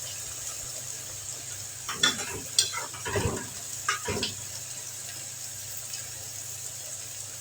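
Garlic frying in ghee, with a steady sizzle. A spoon stirs and knocks against the pan several times between about two and four seconds in.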